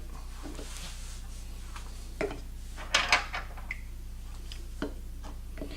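A few light clicks and knocks of plastic PVC pipe end caps and a wood block being handled, the clearest about two and three seconds in, over a steady low hum.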